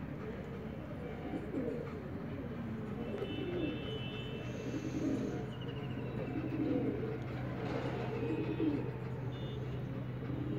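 A flock of domestic pigeons cooing, many low rolling coos overlapping one another.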